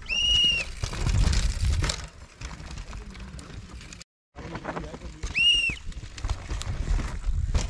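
A short, high whistle blast, then a downhill mountain bike rushing past with a burst of tyre, gravel and wind noise. The sound cuts out briefly, then comes another whistle blast and another bike rushing past.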